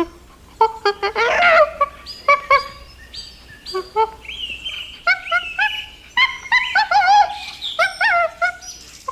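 Domestic fowl calling: a rapid, irregular string of short calls from several birds, some overlapping, some wavering up and down in pitch.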